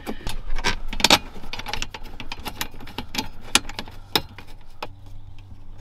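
Scattered clicks, taps and light rattles of a plastic grab handle and its screws being handled and fitted back onto a Ford Bronco's center console, with sharper knocks about a second in and again near three and a half and four seconds.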